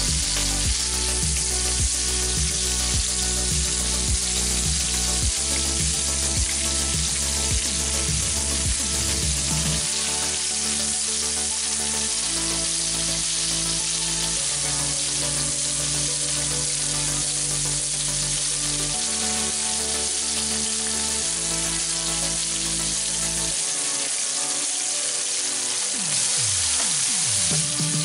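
Floured beef liver slices frying in melted butter in a nonstick pan, with a steady sizzle.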